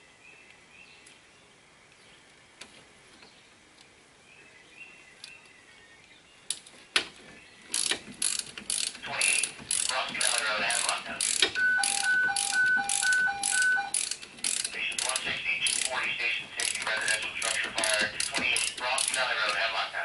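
Socket ratchet wrench clicking in quick runs of strokes as a bolt on a front brake caliper bracket is turned, starting about seven seconds in after a few faint clicks.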